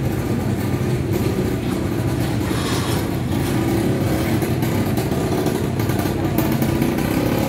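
A small engine running steadily: an even, low rumble with little change in pitch.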